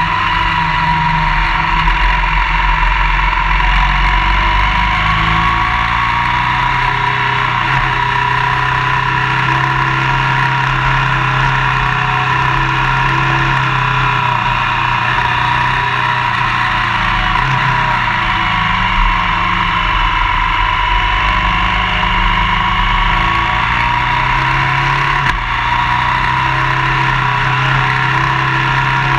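Motorcycle riding at road speed: a steady engine note that slowly dips and rises in pitch with the throttle, under continuous rushing wind and tyre noise.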